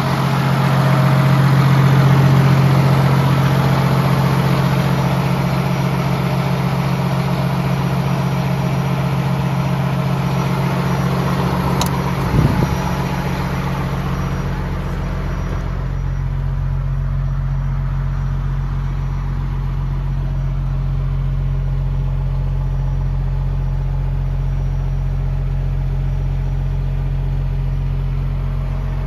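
Cummins L9 inline-six diesel of a 2019 Western Star 4700 truck idling steadily. A brief knock comes about twelve seconds in, and after that the idle sounds more muffled, with a stronger deep rumble.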